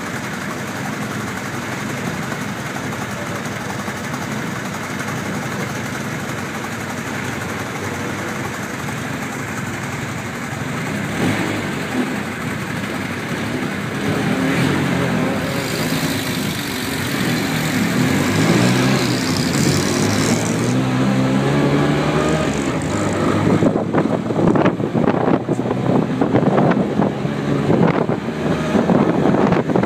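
Cocotaxi's small motor running while the open taxi rides in city traffic, with engine pitch rising and falling as it speeds up through the middle stretch. Wind buffets the microphone in the last few seconds as it gathers speed.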